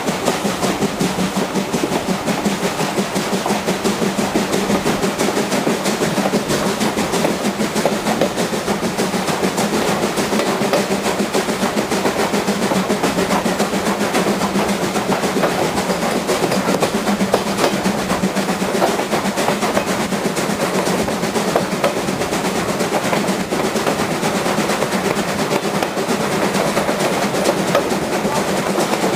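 Train hauled by steam locomotive 29013 running at full speed, heard from an open carriage window: a fast, continuous clatter with a steady low hum.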